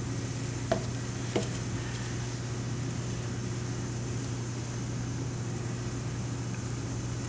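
Steady low mechanical hum of background equipment, with two light knocks in the first second and a half.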